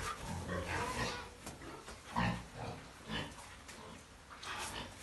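Pigs grunting in a string of short calls while a boar mounts a sow during mating, the loudest grunt about two seconds in.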